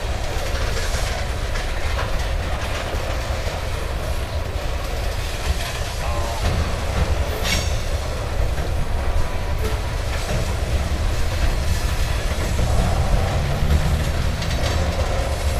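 Loaded covered hopper cars of a grain train rolling past: the steady low rumble of steel wheels on the rails, with a few sharp clicks along the way.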